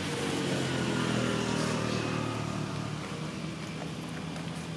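Engine of a motor vehicle passing nearby, a steady hum that swells about a second in and then slowly fades.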